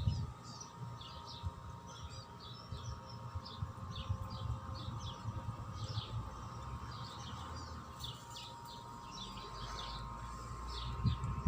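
Small birds chirping: many short, high chirps in quick overlapping runs, over a steady faint hum, with a brief low rumble near the end.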